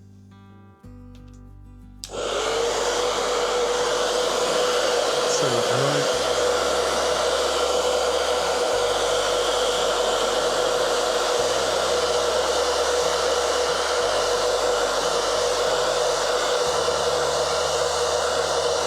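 Hair dryer switched on about two seconds in, then running steadily: a loud rush of air with a steady hum. Background music with slow bass notes plays underneath.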